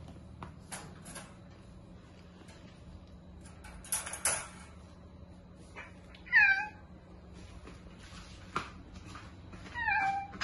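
A cat meowing twice, two short calls a few seconds apart, the first the louder. Scattered sharp clicks and knocks sound between the calls.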